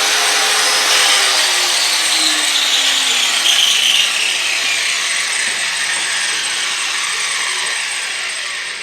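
Grinder sharpening a steel mower blade: a steady grinding hiss with a whine that falls in pitch over the first few seconds, then fading slowly near the end.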